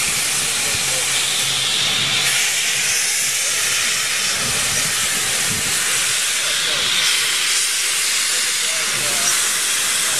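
Small steam locomotive moving off slowly with its cylinder drain cocks open, a steady loud hiss of steam venting beside the track.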